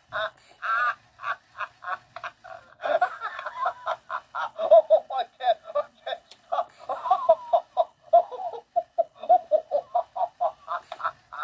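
Animated Laughing Santa plush toy laughing through its built-in speaker: a fast, repeating run of short laughs, about four or five a second, broken twice by longer laughing stretches.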